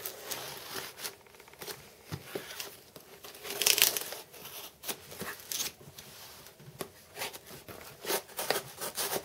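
Packing tape on a cardboard box being slit with a folding knife and torn loose, with crinkling tape and rustling cardboard in irregular scrapes; the longest, loudest rip comes about three and a half seconds in.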